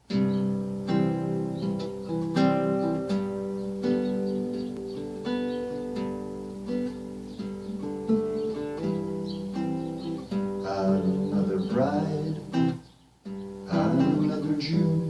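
Music led by an acoustic guitar playing plucked and strummed chords, with a brief break about thirteen seconds in.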